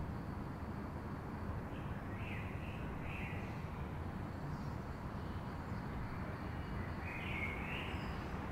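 City dawn ambience: a steady low rumble of distant traffic, with a bird giving a few short calls about two to three seconds in and a longer call near the end.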